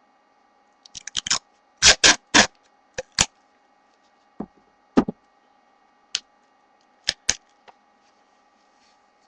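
Sticky tape and paper being handled: a quick run of short crackles and snaps about a second in, the three loudest around two seconds in, then single clicks and taps spaced out over the next few seconds.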